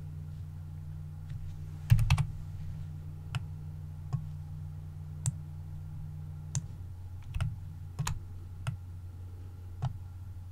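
Scattered clicks of a computer mouse and keyboard, a quick cluster of several about two seconds in and then single clicks roughly every second, over a steady low hum.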